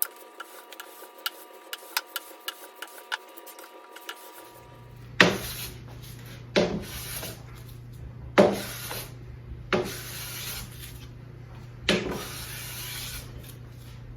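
Hand plane taking long strokes along the face of a wooden board: five scraping strokes, each with a sharp bite at the start, one every second and a half or so, over a low steady hum. Before them come a few seconds of faint light ticking.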